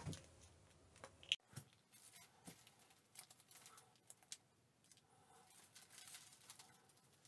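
Faint crinkling and light ticking of a thin plastic-bottle strip being wound by hand around a needle file.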